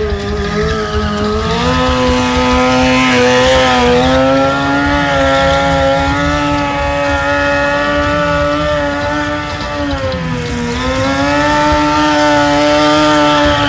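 Sport motorcycle engine held at high, steady revs during stunt riding. The pitch rises about two seconds in, dips briefly around ten seconds, then climbs back up.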